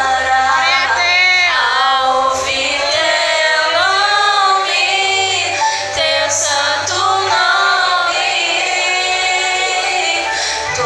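Two girls singing a Portuguese gospel song together into handheld microphones, with a low bass accompaniment under the melody.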